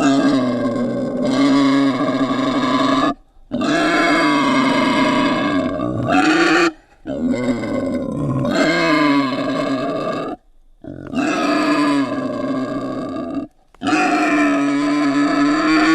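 Wild boar calling: a run of long, drawn-out calls of about three seconds each, with short breaks between them.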